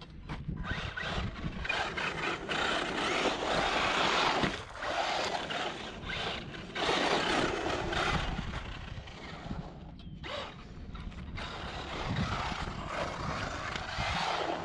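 Losi 22S SCT electric RC short course truck driving on a dirt track: its tyres scrabbling over loose dirt and its motor running in surges as the throttle comes on and off, dropping away briefly about ten seconds in.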